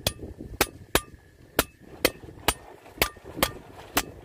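Hammer tapping around the rim of a steel floating seal (duo-cone face seal) to seat it in the track final drive housing of a Kato HD512E excavator. About nine sharp metallic taps, roughly two a second, each with a short ring.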